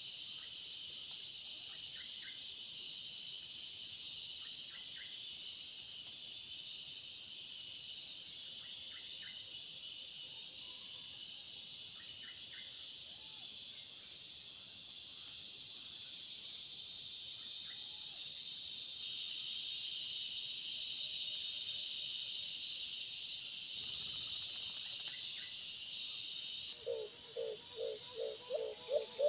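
Steady, dense insect chorus in the forest, with a few faint short chirps. Near the end a dove starts a fast series of low hoots, several a second.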